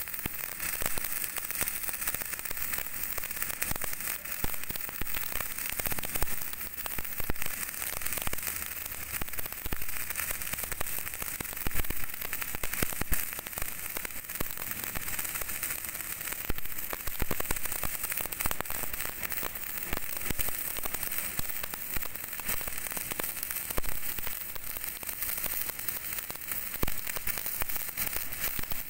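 MIG welding arc on steel, a steady dense crackle with spatter that does not break.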